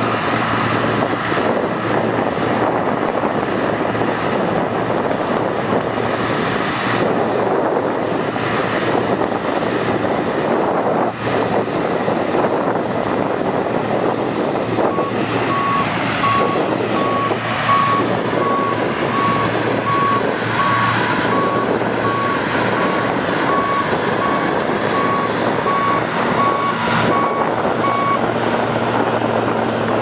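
John Deere T670 tracked combine harvester running while harvesting: a steady, dense engine and threshing drone with a constant low hum. About halfway through, a regular series of short electronic beeps starts, roughly one or two a second, and stops shortly before the end.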